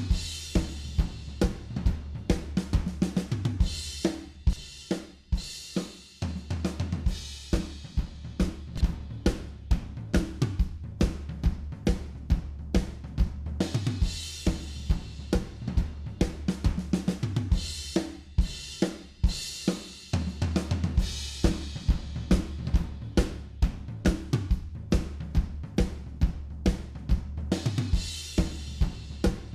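Recorded drum kit playing a steady groove of kick, snare, hi-hat and cymbals, with a bass line sustaining low notes underneath, played back through compressor plugins.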